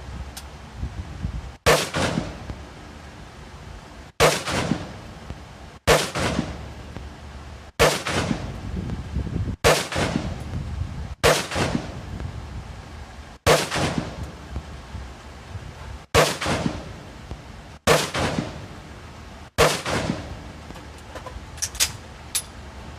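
A firearm firing ten single shots, one every two seconds or so, each shot trailing off in a short echo. A few lighter clicks follow near the end.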